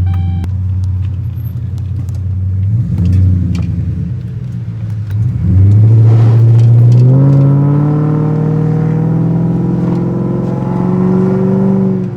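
Honda Civic's four-cylinder engine revving briefly about three seconds in. From about five seconds in it pulls steadily under acceleration, its pitch climbing slowly as the car speeds up in gear.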